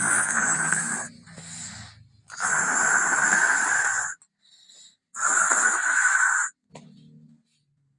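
A person snoring: three loud snores, each one to two seconds long, with pauses between them.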